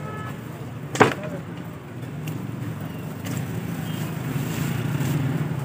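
A heavy knife chopping fish on a wooden log block: one sharp chop about a second in and a lighter knock a little after two seconds. Under it runs a steady low hum that grows louder in the second half.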